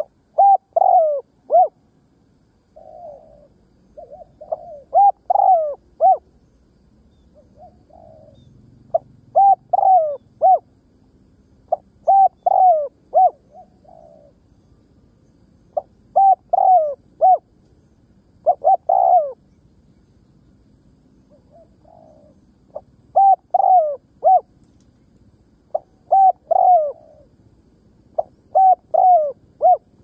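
Spotted dove cooing. It repeats a short phrase of three or four clear coo notes about every two to three seconds, with a few fainter notes between some phrases.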